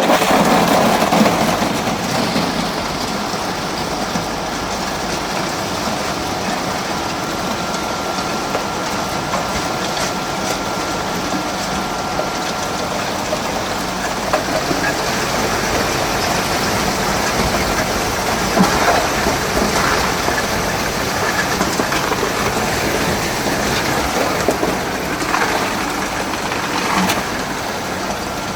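Cube ice machine plant running: a steady loud mechanical noise with scattered clicks and rattles, and a faint thin whine that stops about halfway through.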